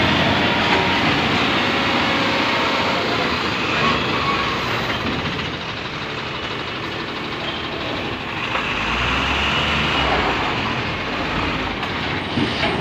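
Diesel engine of a loaded-looking multi-axle Tata Signa tipper truck running as the truck drives slowly past, with a heavier low rumble about two-thirds of the way through.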